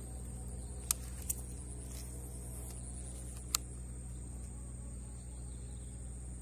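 Steady outdoor background of a low hum and a thin, steady high-pitched whine, broken by three sharp clicks: two close together about a second in, and one more about three and a half seconds in.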